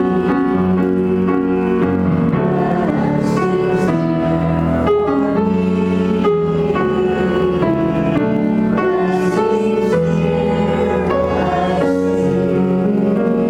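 Keyboard music with sustained chords that change about once a second.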